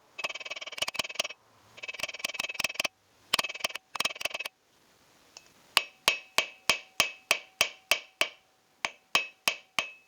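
Hammer blows on a silver bar over an anvil, cold-drawing the bar down to a smaller square section. First come quick runs of rapid blows in bursts about a second long. Then, about six seconds in, come single ringing strikes at about three a second.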